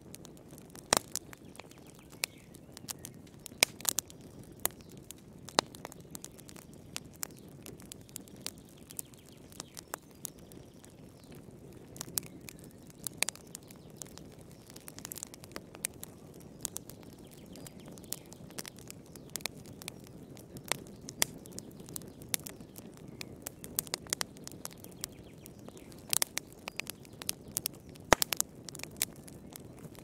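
Log fire crackling in a fireplace: irregular sharp pops and snaps over a soft low rush of burning, with a flurry of louder pops near the end.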